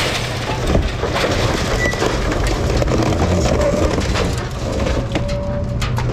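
A scrapyard claw crane crushing and grabbing a stripped Chevy Silverado truck body: steady crunching of metal with many sharp cracks and breaking glass, over the crane's engine running.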